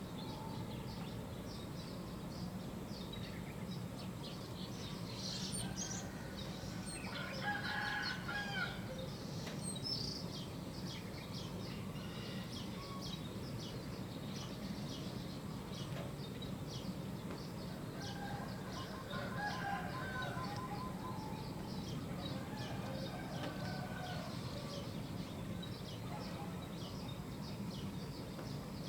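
Roosters crowing and chickens clucking, loudest about a quarter of the way in and again past the middle, over steady chirping of small songbirds and a constant low hum.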